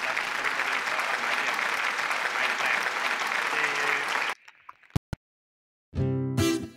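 A crowd applauding and cheering, starting abruptly and cutting off suddenly about four seconds in. After a moment of silence, strummed guitar music begins near the end.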